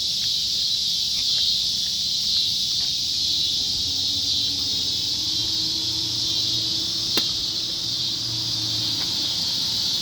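Steady, high-pitched chorus of insects, likely crickets or cicadas, droning without a break. A single sharp click comes about seven seconds in.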